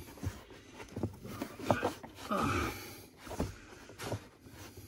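Scattered light clicks and scrapes of a small Allen wrench against the throttle pedal's bolts and bracket, with a couple of short strained exhalations or grunts about two seconds in.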